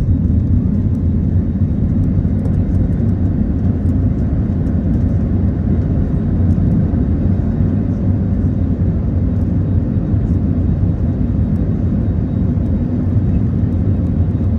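Airbus A321neo's CFM LEAP-1A turbofans at takeoff thrust, heard from inside the cabin over the wing: a loud, steady low rumble through the takeoff roll, liftoff and initial climb.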